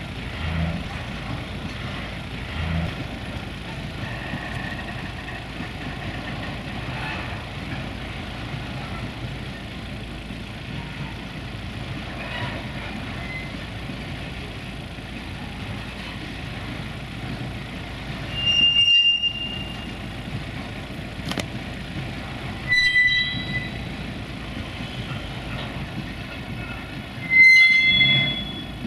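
Empty car-carrier freight wagons rolling past on the rails with a steady rumble, broken by three short high-pitched wheel squeals, about two-thirds of the way through, again a few seconds later, and loudest near the end.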